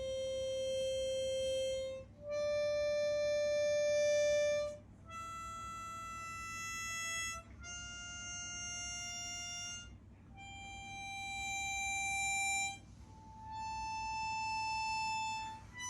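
Chromatic harmonica playing a slow rising scale of six long held notes, each about two seconds, with short breaks between them. Some notes swell from soft to loud.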